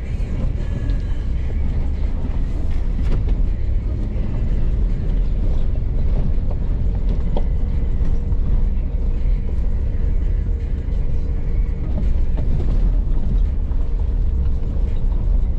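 Truck driving slowly over a rough dirt trail, heard from inside the cab: a steady low rumble of engine and tyres with scattered small knocks and rattles.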